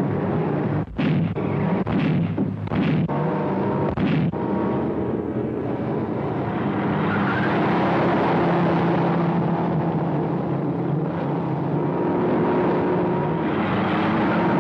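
Several sharp bangs over the first four seconds, then a steady motor hum.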